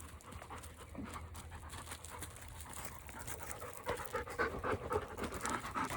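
A dog panting hard in quick, rhythmic breaths, out of breath from playing fetch; the panting gets louder about four seconds in.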